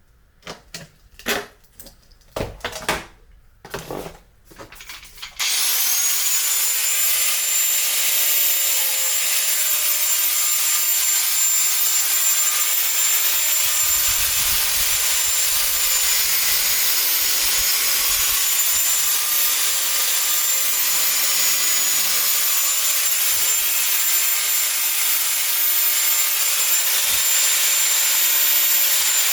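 Several knocks and taps, then an angle grinder starts about five seconds in and runs steadily with a high whine, cutting through 3D-printed plastic to separate two printed sword segments.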